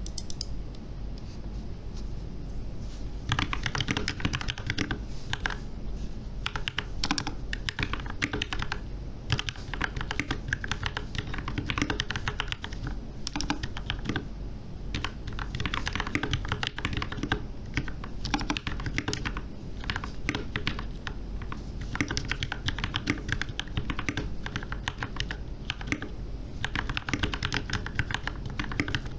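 Typing on a VortexSeries VX6 mechanical keyboard with lubed and filmed Gateron Black Ink V2 linear switches and PBT Cherry-profile keycaps, keystrokes coming in quick runs with short pauses, starting about three seconds in. A steady low background hum runs underneath.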